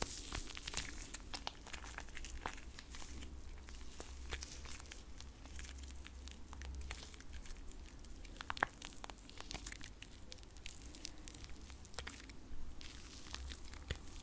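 Close-miked ASMR hand sounds: hands rubbing and pressing together in a dense run of small crackles and sticky clicks, with one sharper click about two-thirds through.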